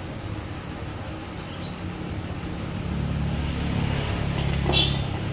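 A low, steady motor hum that grows louder about three seconds in, with a couple of light metallic clicks near the end.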